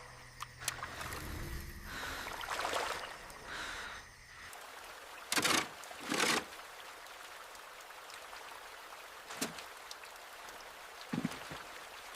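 Water trickling and sloshing, broken a little past the middle by two short, loud noisy sounds. Lighter clicks follow near the end.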